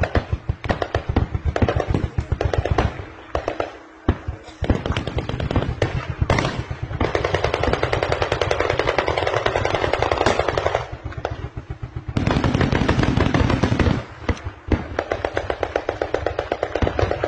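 Automatic gunfire in rapid bursts of many shots. The fire is near continuous from about seven to eleven seconds in and again from about twelve to fourteen seconds.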